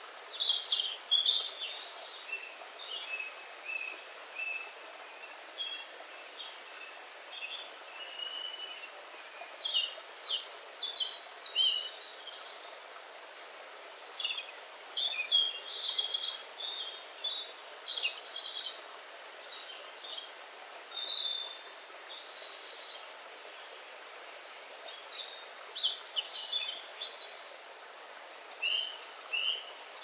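Several songbirds singing quick, high, twittering phrases in clusters, thinning out for a few seconds near the start and again late on, over the steady rush of a small forest stream.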